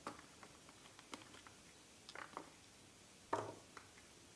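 Peeled shallots dropped one at a time into a glass jar, each landing with a light knock on the glass. There are about six faint knocks spread out, the loudest a little past three seconds in.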